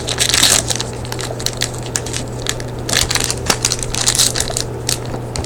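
Plastic-foil trading card pack wrapper crinkling and crackling as it is squeezed and pulled at, a pack that is hard to tear open. A steady low hum runs underneath.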